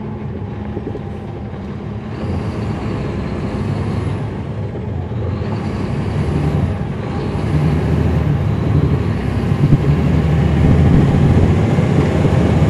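Caterpillar C13 ACERT diesel engine of a 2009 NABI 40-SFW transit bus running through its ZF Ecomat automatic transmission. It grows louder about two seconds in and again about eight seconds in, as the bus pulls under load.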